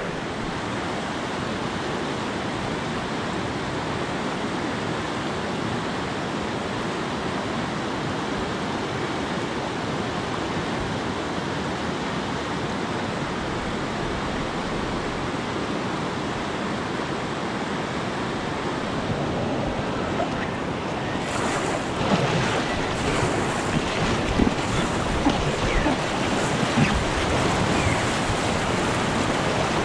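Steady rush of river whitewater. About two-thirds of the way in it grows brighter and a little louder, with scattered sharp splashes.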